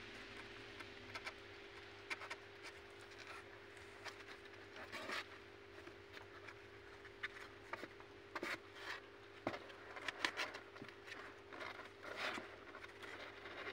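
Kittens' paws and claws scuffing and scratching on the cardboard of a box and rustling crumpled paper: scattered light scrapes and clicks, a little busier in the second half, over a faint steady hum.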